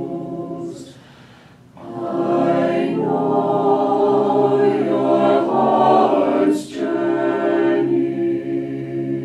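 Mixed choir singing a cappella: a held chord fades out about a second in, then after a brief pause the voices come back in louder with a sung phrase of sustained chords and crisp 's' consonants.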